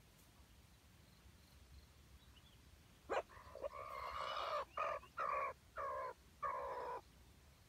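A red junglefowl rooster crowing about three seconds in, the crow broken into a stuttering run of six or seven short pieces over about four seconds, beginning with a sharp note.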